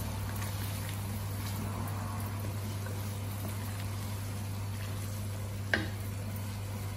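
Boneless chicken pieces cooking in a wok, bubbling and sizzling in their juices as a wooden spatula stirs them, over a steady low hum. A single sharp knock comes about six seconds in.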